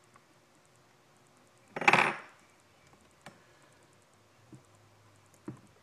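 A short metallic clatter of metal parts knocking together about two seconds in, followed by three faint clicks, from hands working on a chainsaw's bar and chain.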